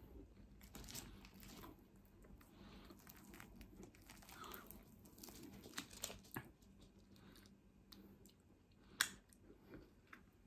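Faint close-up eating sounds: chewing, and small crackles as a breadcrumbed fish cake (mashed potato and fish inside) is torn apart by hand. One sharp click about nine seconds in.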